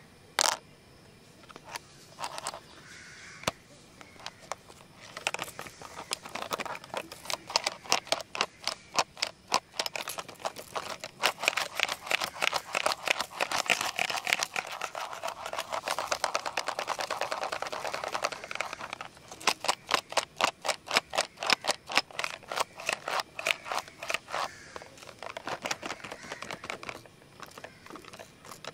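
Plastic pencil box being shaken and tapped, its contents rattling: a few single clicks at first, then fast clicking that thickens into an almost continuous rattle midway and breaks back into quick separate clicks.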